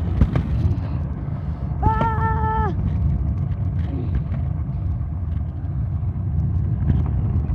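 Steady low rumble of wind buffeting a phone microphone while riding a scooter, with a brief steady-pitched tone about two seconds in.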